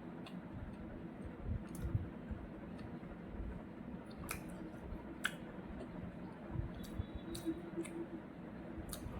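Eating sounds close to the microphone: chewing with scattered sharp clicks and soft smacks over a low steady hum.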